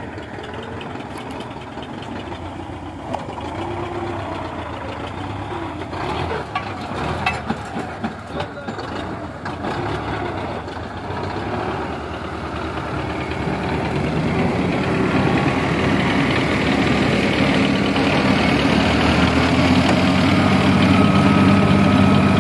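Diesel tractor engines running steadily while a tractor-driven brick-making machine works clay. There is a spell of knocks and clatter a few seconds in, and the machine's running grows steadily louder toward the end.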